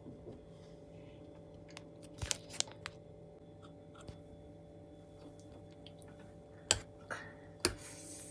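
A metal fork stirring instant noodles in a stainless steel pot of water: a few sharp clinks and scrapes of fork on pot, a cluster about two seconds in and the loudest near the end. A steady low hum runs underneath.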